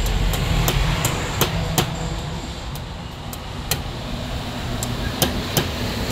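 Sharp metal-on-metal clicks from combination pliers gripping and working a small alternator part, a quick run of about five in the first two seconds, then a few more spaced out. A steady low rumble runs underneath.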